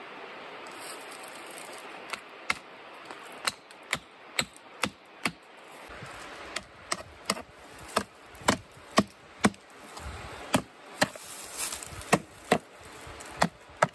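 Hammering on wood to fix a trail sign in place: a string of sharp wooden knocks, about two a second, starting about two seconds in and getting louder in the second half.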